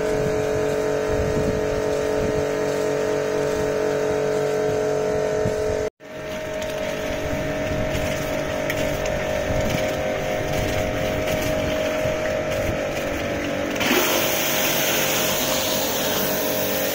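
Karcher K5 pressure washer's motor and pump running with a steady whine. After a short break it runs on with water hissing from the surface-cleaner attachment on concrete, and a louder spray hiss joins near the end.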